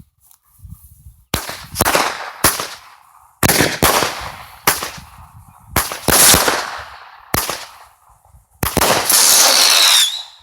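Dominator Mighty Mini 1.4G consumer fireworks cake firing its shots one after another: about seven sharp reports, each trailing off in a hiss, then a dense crackling hiss for the last second and a half or so.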